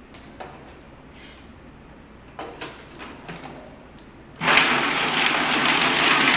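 A few light clicks as a food processor's lid and feed-tube pusher are fitted, then about four seconds in the motor starts suddenly and runs loudly, its blade chopping carrots and soaked almonds.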